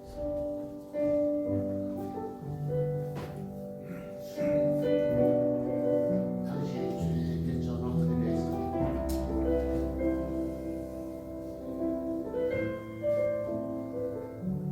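Electronic keyboard playing a slow hymn in a piano-like voice: held chords over a low sustained bass line.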